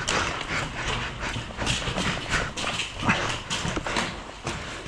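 Quick, irregular footfalls of people running, several knocks a second.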